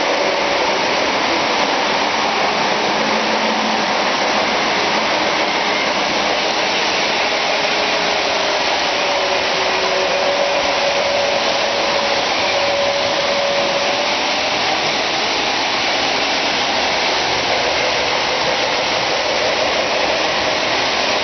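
Several Lionel O-gauge model trains running at once on a large layout: a steady mix of motor hum and wheels on metal track, with a faint held tone coming and going now and then.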